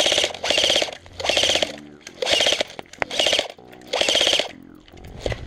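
Airsoft rifle firing short full-auto bursts, about six in quick succession, each lasting about half a second.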